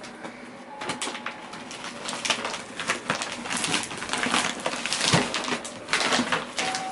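Plastic wrapping on a boxed mattress rustling and crinkling as it is handled and pulled open, with many irregular crackles and small knocks.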